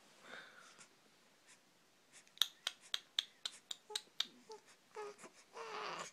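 A quick run of about ten sharp clicks over two seconds, roughly five a second, then short babbling sounds from an infant near the end.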